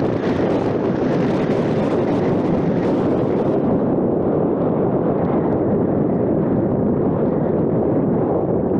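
Steady wind rush and road noise from a moving car, with wind buffeting the camera's microphone. The higher hiss drops away about three and a half seconds in.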